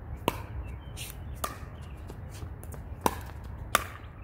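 Pickleball rally: paddles striking the hard plastic ball, four sharp pocks with a short ringing tone, spaced about a second apart.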